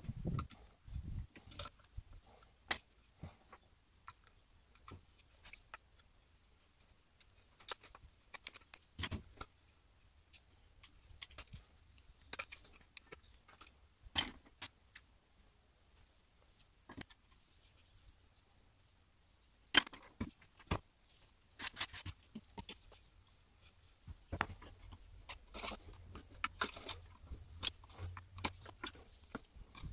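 Small metal pick scraping and picking in the vial recesses of an old wooden spirit level: scattered sharp clicks and short scratches at irregular intervals, with a denser run of scraping near the end.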